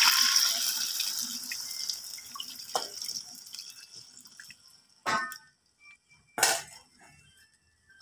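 Water poured from a steel bowl into a hot wok of crabs in sauce: a loud hiss and sizzle as the water hits the hot pan, dying away over the first few seconds as the wok fills and cools. Two short metal clanks follow, about five and six and a half seconds in.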